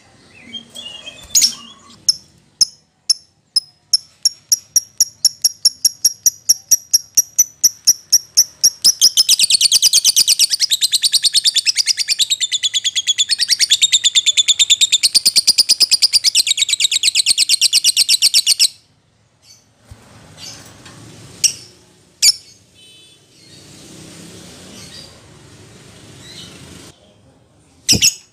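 An agitated fighter lovebird chirping in a quickening series of sharp, high notes that run together into a long, rapid, continuous trill of about nine seconds. The trill breaks off sharply, and a quieter stretch follows with a few single calls.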